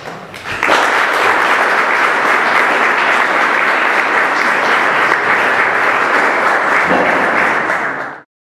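Audience applauding: the clapping builds quickly in the first second, holds steady and dense, then cuts off abruptly near the end.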